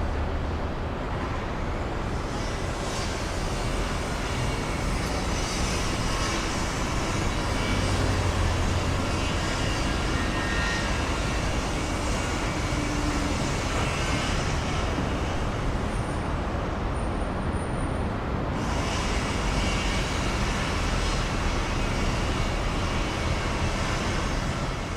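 Steady city traffic: a continuous wash of passing cars, buses and trucks with engine rumble and tyre noise, and no single vehicle standing out.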